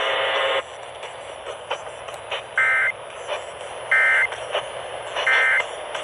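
Midland NOAA weather radio speaker playing the Emergency Alert System end-of-message signal: three short, identical bursts of warbling two-tone data about a second and a half apart over steady radio hiss, marking the end of the alert. A steady buzzy tone cuts off about half a second in, before the bursts.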